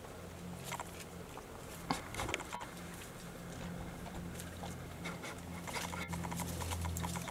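Warthog biting and chewing on a piglet carcass: scattered crunches and clicks, the sharpest about two seconds in.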